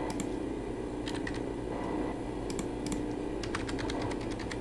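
Computer keyboard keystrokes, single clicks and a quick run of several near the end, over a steady low background hum.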